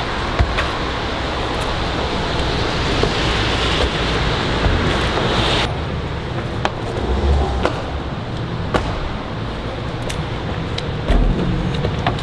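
Steady hiss of road traffic, with scattered sharp taps of a freerunner's shoes landing and pushing off on brick paving and concrete. The background hiss changes abruptly about halfway in.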